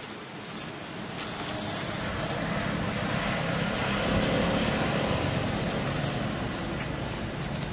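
A passing motor vehicle: a steady motor noise that swells to its loudest about four seconds in and then fades away, with a few light clicks.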